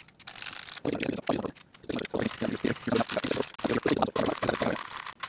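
Aerosol DeoxIT contact cleaner sprayed in short hissing bursts through its straw nozzle into a stereo receiver's toggle switches, mixed with the switch levers being flipped back and forth rapidly to work the cleaner into the contacts.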